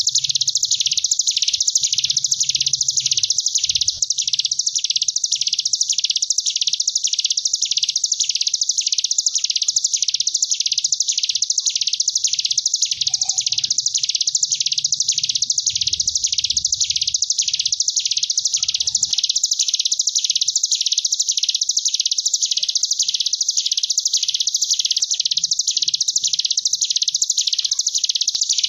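Ciblek gunung, a small mountain prinia, singing its 'ngebren' song: one long, unbroken, wasp-like buzzing trill that swells and fades in regular waves, about three every two seconds.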